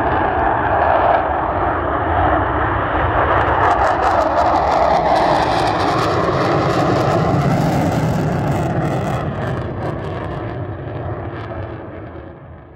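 F-15E Strike Eagle taking off in afterburner: loud jet noise that crackles harshly through the middle as the fighter passes and climbs, then fades away near the end as it departs.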